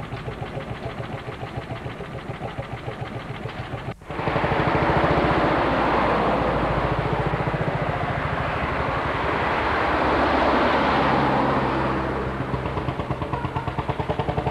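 Lanz Bulldog tractor's single-cylinder hot-bulb two-stroke engine idling with an even beat of about five thuds a second. About four seconds in the sound breaks off and a louder, denser engine noise takes over, and the slow beat comes back near the end.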